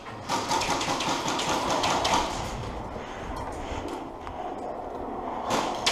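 Rattling and rustling of an airsoft player's gear and rifle as he moves, with scattered clicks and knocks. The rattling is densest for the first couple of seconds, and a sharper knock comes near the end.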